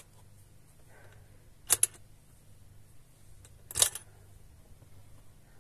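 Sharp mechanical clicks from the switches and push buttons of an airsoft game-timer control box: a quick double click a little under two seconds in, and a louder click just before four seconds in as the unit is switched off and its screen goes dark.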